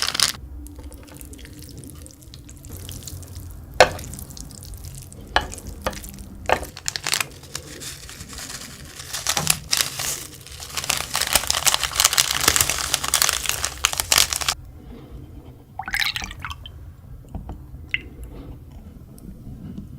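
Wet liquid sounds from a bowl of spicy Korean instant noodles being handled: a few sharp knocks, then several seconds of dense splashing liquid noise that stops abruptly about fourteen seconds in, followed by quieter handling.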